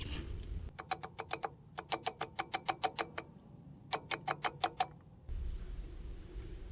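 A ratchet clicking in three quick runs of even, sharp clicks, about eight a second.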